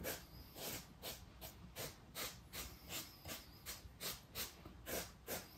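Small paintbrush dabbing and scrubbing wet paint into carved styrofoam, a run of short scratchy swishes about two to three a second.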